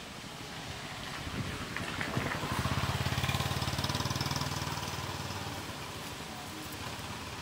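A small engine runs with an even, rapid pulsing. It grows louder a couple of seconds in, peaks and then fades away, as if passing by, over a steady outdoor hiss.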